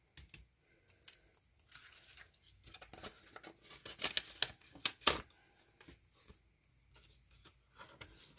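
A paper envelope being torn open by hand, with paper rustling and crinkling; the loudest rips come about four to five seconds in, followed by quieter handling of the card inside.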